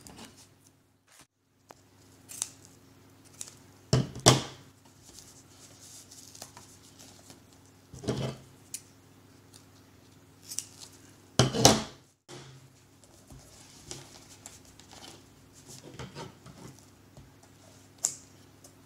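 Scissors snipping through the adhesive vinyl repair patch, trimming off the excess: a handful of separate sharp cuts spread out, with quieter rustling and scraping of the material in between.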